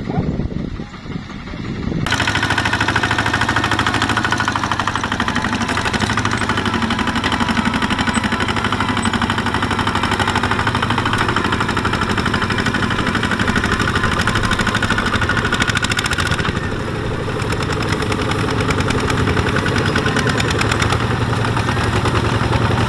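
Single-cylinder Kubota ZT155 diesel engine of a two-wheel walking tractor running hard, a fast steady chug, as it pulls a heavily loaded trailer through mud and straw. Louder from about two seconds in.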